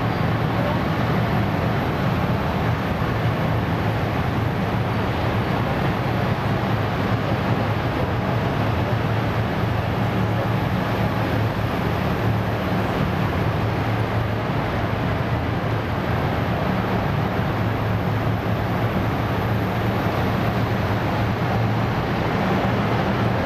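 Engines of heavy armoured military vehicles running as a column drives past, a steady low drone.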